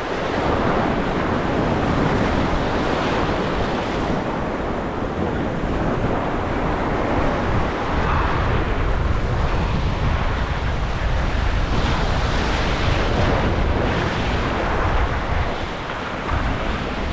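Surf washing and breaking over jetty rocks in a steady rush, with wind buffeting the microphone.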